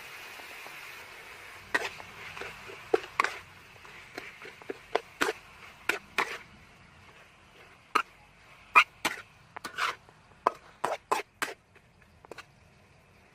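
Spoon mixing fish cake paste in a metal wok: irregular sharp clinks and knocks as it strikes and scrapes the pan, over a steady hiss that fades in the first few seconds.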